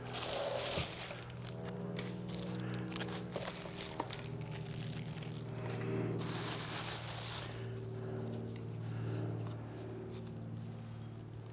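Clear plastic packaging crinkling and small parts clicking while a sewing machine is unpacked, with crinkling at the start and again about six seconds in. Soft background music with sustained chords plays underneath.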